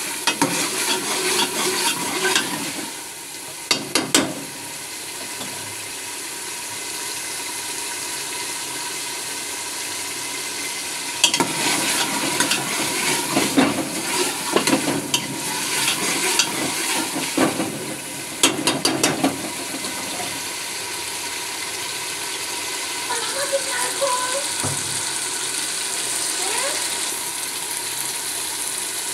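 Peas and potatoes frying in masala in a pressure-cooker pot, a steady sizzle throughout. A ladle scrapes and clinks against the metal pot in bursts of stirring, in the first few seconds and again for several seconds in the middle.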